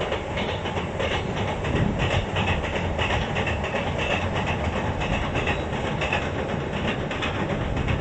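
Sanyo Railway limited express electric train crossing a steel girder railway bridge: a steady rumble with rhythmic wheel clatter on the rail joints (gatan-goton).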